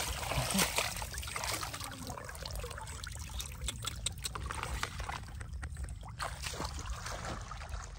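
Water splashing and trickling in a shallow plastic basin crowded with koi: a run of small, irregular splashes and drips.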